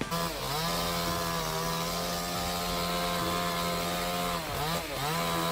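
Chainsaw running at high, steady revs. The revs dip briefly and pick back up twice, once about half a second in and again near the end.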